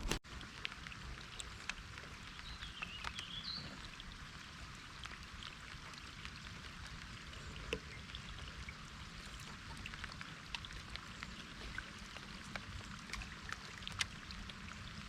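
Faint steady lakeside water noise with scattered small clicks, and a short chirp about three seconds in.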